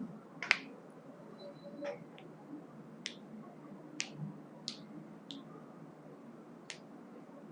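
Faint, sharp clicks at irregular intervals, about eight over several seconds, over quiet room tone.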